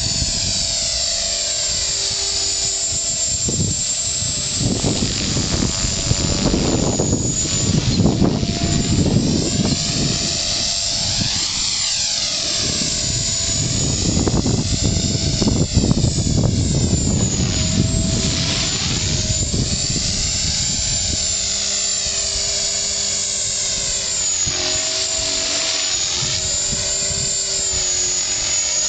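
An HK 450 electric RC helicopter in flight: a steady high motor and rotor whine. As the helicopter moves about, the whine sweeps up and down in a wavering, phasing way. Heavy low gusting rumbles come twice, a few seconds in and again about midway.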